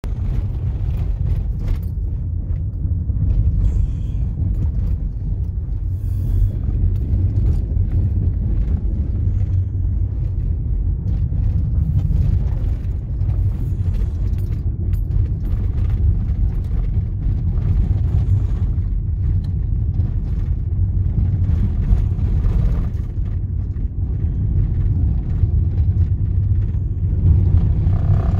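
A car driving on a dirt road, heard from inside the cabin: a steady low rumble of engine and tyres on gravel, with scattered small clicks and rattles.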